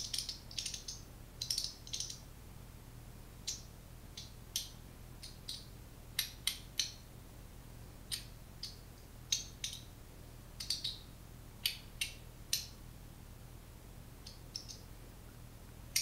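Mr Wang Battle Master V1.1 magnetic fidget slider slid back and forth by hand in both directions: a short swish of the slide, then a sharp click as it snaps into place at each end. The clicks come at irregular intervals, often in quick pairs.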